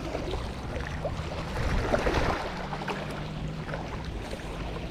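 Wind buffeting the microphone over small waves lapping at a rocky shore, with a low steady hum underneath that swells a little about two seconds in.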